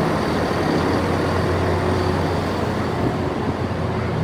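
Diesel multiple unit idling steadily at a station platform, a constant low engine hum.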